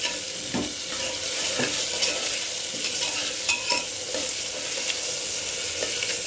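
Chopped onions, tomatoes and green chillies sizzling in hot oil in an aluminium pot, with a metal spoon scraping and clinking against the pot now and then as they are stirred.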